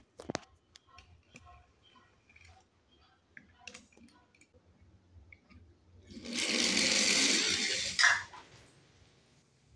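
Small die-cast toy car rolling fast down a wooden board for about two seconds, a steady rolling rush, ending in a sharp knock as it drops into a plastic tub of water. Before that, light clicks of toy cars being handled and set down.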